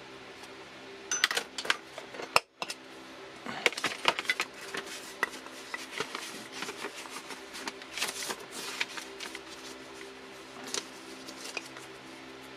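Paper pattern rustling and an awl clicking and scratching against a wooden workpiece as a hole is poked through, in irregular clusters of sharp clicks. A steady low hum runs underneath.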